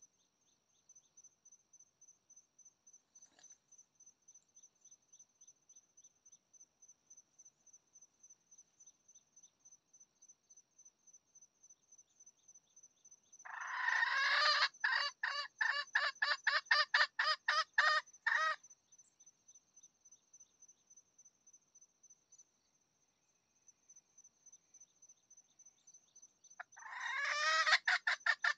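Two bouts of a loud animal call made of fast, evenly spaced pulses, about three a second: one lasting some five seconds midway, the other starting near the end. Crickets chirp steadily underneath.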